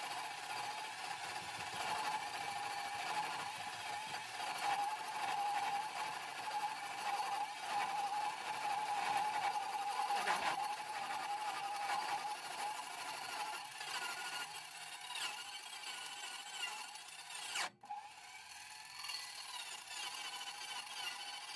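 A 14-inch Hitachi chop saw's universal motor, run slow at about 700 RPM off a battery pack, driving a toothed cold-cut blade through 1/8-inch-wall, 1.5-inch square metal tubing: a steady motor whine under the scraping and grinding of the teeth biting the metal. The sound breaks off for an instant about three-quarters of the way through.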